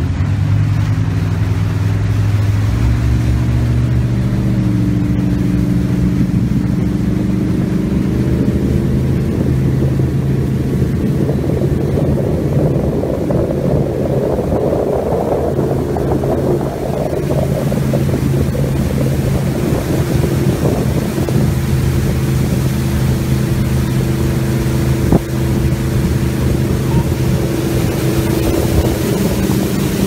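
Regal 2500 powerboat's engine running steadily at cruising speed, with wind buffeting the microphone and water rushing past the hull.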